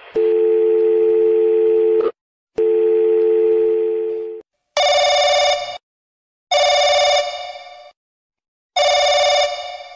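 Telephone call ringing out: two long, steady ringback tones of about two seconds each, then three shorter, brighter telephone rings, with silence between each.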